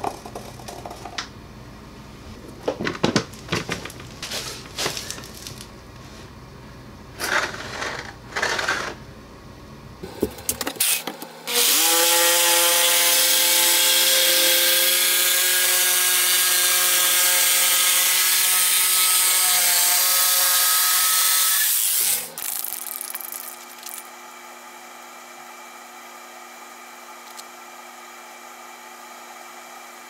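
A jigsaw cutting through OSB board for about ten seconds: a steady motor whine over a loud buzzing cut, starting and stopping abruptly. Before it come scattered clicks and rattles of hand work.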